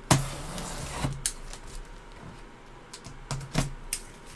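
Packaging of a large autographed photograph being handled and opened: a short scraping rustle just after the start, then scattered sharp clicks and taps. The loudest tap comes right at the end.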